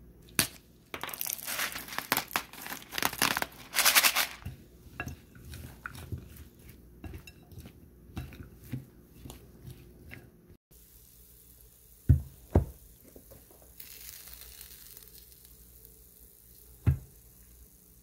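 Spatula tossing and stirring chopped raw mushrooms and onion in a glass dish: a loud stretch of rustling and crunching, then softer scrapes and taps against the glass. After a break, a few single sharp knocks.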